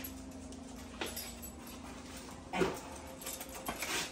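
A small dog whining, with one short louder cry about two and a half seconds in.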